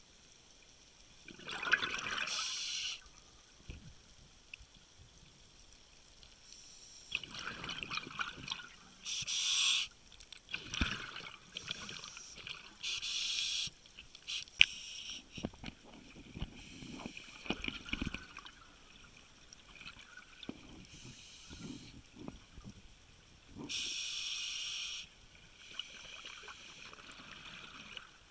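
Water sloshing and trickling, broken by several short bursts of hiss.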